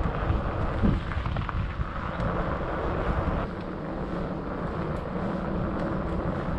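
Wind buffeting the camera microphone on a moving fat bike, over the rumble of its knobbly fat tyres rolling on tarmac.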